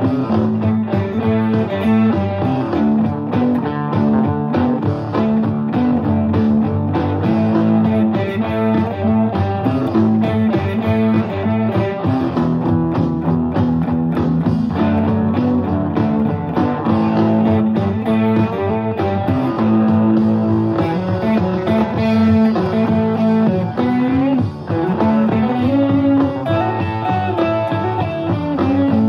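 Stratocaster-style electric guitar played through a small Fender combo amplifier, picking chords and notes in a continuous blues-rock style practice passage.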